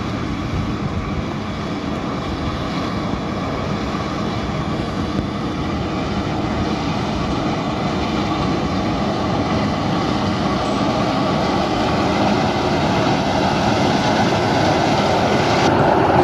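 A rice combine harvester's engine and threshing machinery run steadily in a dense, continuous mechanical noise that grows gradually louder.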